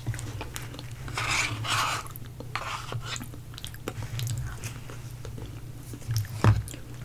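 Close-miked eating sounds: chewing and wet mouth noises from a spoonful of food. Near the end, a plastic spoon clicks sharply once against the food cup, the loudest sound here.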